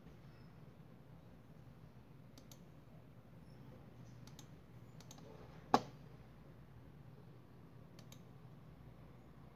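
Computer mouse clicking: a few faint clicks and one sharp, much louder click a little past halfway through, over a low steady hum.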